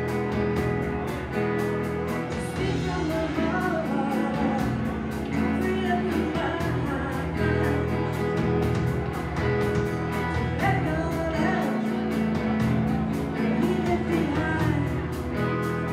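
Live rock band playing: amplified electric guitars, bass guitar and drum kit with steady cymbal strokes, and a woman singing lead vocals.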